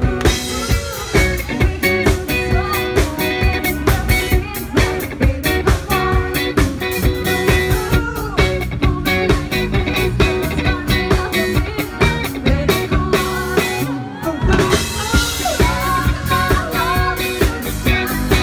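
Live cover band playing a song with a woman singing lead over drums and electric guitar on a steady beat. The band drops back briefly about fourteen seconds in, then comes in full again.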